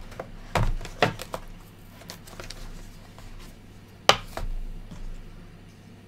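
A small cardboard SSD box and a hobby knife being handled on a desk: a few sharp clicks and knocks, the loudest about four seconds in.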